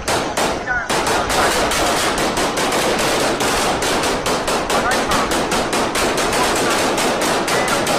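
Automatic gunfire: a few separate shots, then from about a second in a sustained stream of rapid, evenly spaced shots.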